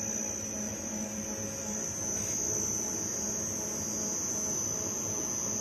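Sigma-blade kneader running steadily at half speed with its blades turning forward: an even hum from the explosion-proof electric motor and gear reducer, run by a variable-frequency drive, with a thin steady high whine over it.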